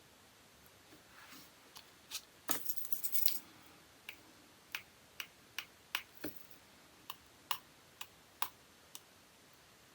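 Light clicks and taps of small nail-art tools and bottles being handled on a work surface. There is a short crackling rustle about two and a half seconds in, then about ten sharp single clicks spaced roughly half a second apart.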